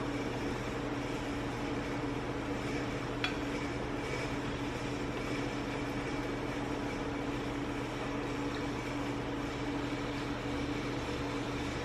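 Steady mechanical hum of a running kitchen appliance or fan, with a single light clink about three seconds in.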